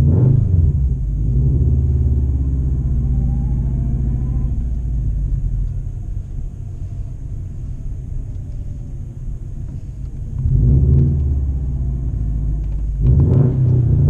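Straight-piped 2013 Subaru WRX's turbocharged 2.5-litre flat-four exhaust, heard from inside the cabin, running low and deep while the car backs out and pulls away. The revs rise briefly at the start and again about ten and about thirteen seconds in, as the driver gets on the throttle.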